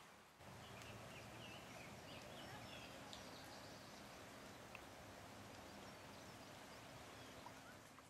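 Faint steady rush of the Chattahoochee River running high with a dam water release, with small birds chirping a few times in the first half.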